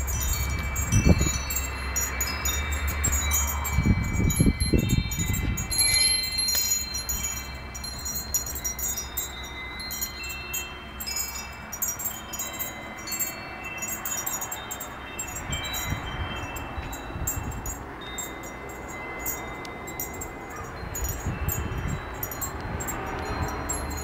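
Japanese furin wind chime tinkling in the wind: its clapper strikes the small bell again and again, giving bright, high, overlapping ringing tones. A few low rumbles come and go.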